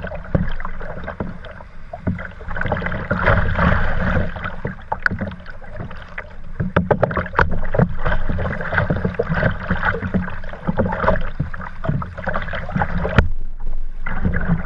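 Kayak running choppy riffles on a fast, swollen river: water rushing and slapping against the hull, with many irregular splashes.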